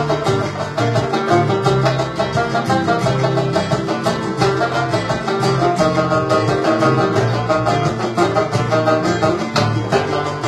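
Tenor banjo picked with a plectrum in fast runs of notes, over a recorded flamenco backing track with a steady bass line underneath.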